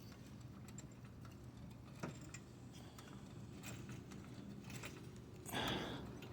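Faint clicks with one light knock about two seconds in as the front subframe of a 2009 Mazda 5 is levered upward: the subframe popping only slightly under the load, even though its bolts are torqued to spec. A short rustling sound comes near the end.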